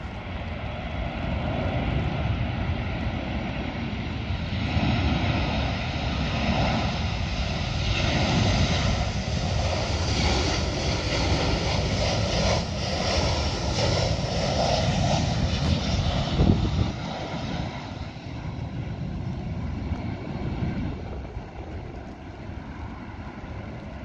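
Boeing 737-700's CFM56-7B turbofan engines on final approach: a steady jet rush with a thin whine. It grows louder as the airliner passes low, holds loudest through the middle, then fades as it descends toward the runway. A brief thump comes about two-thirds of the way in.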